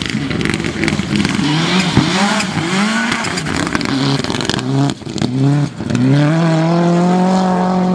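Rally car engine revving hard, its pitch climbing and dropping again and again as it shifts gears. It dips briefly twice around the middle, then holds a high, steady note near the end.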